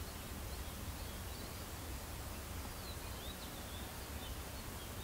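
Outdoor ambience: a steady hiss with uneven low wind rumble on the microphone, and a few faint, scattered bird chirps in the middle.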